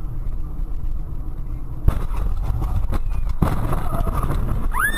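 Car crash heard from inside the car: steady engine and road rumble, then a sudden loud bang about two seconds in, two more knocks a second or so later, and a continuous crunching, rustling noise as the car ploughs through a hedge with debris flying.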